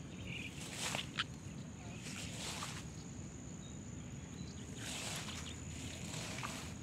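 Tomato plant leaves rustling in a few short bursts as they are brushed past, over a low steady wind rumble and a thin, steady high whine.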